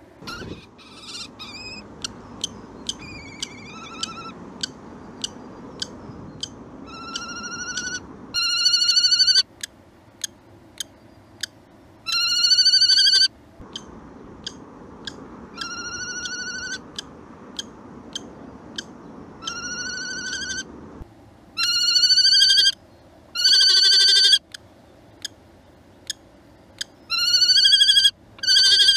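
Eurasian kestrel calling repeatedly at the nest box: drawn-out calls about a second long, each rising slightly in pitch, some very loud and close. Between the calls, short sharp ticks come about twice a second.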